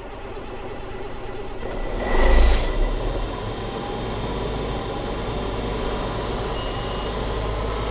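Diesel engine of a 2007 Challenger MT765B tracked tractor, heard from inside the cab just after starting. It builds up over the first couple of seconds, with a louder surge and a hiss about two seconds in, then runs steadily, starting and running well.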